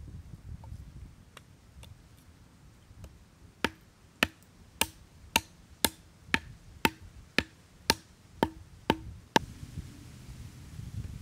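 Small hatchet chopping a stick laid on a driftwood block: about a dozen sharp wooden strikes at roughly two a second, starting a few seconds in and stopping near the end.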